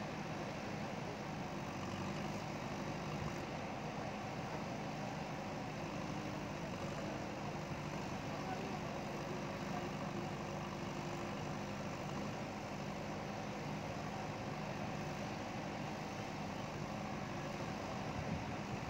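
JCB backhoe loader's diesel engine running steadily at a low, even speed.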